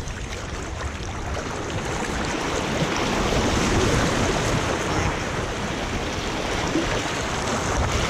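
Rushing, churning water of a water park's wild-river rapids channel, splashing close by at water level and swelling louder about three seconds in.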